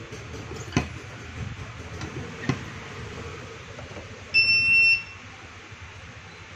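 Electronic beep from an SKT smartphone laminating and bubble-removing machine as it is powered up: one steady high-pitched beep of a little over half a second, about four seconds in. Two sharp clicks come before it.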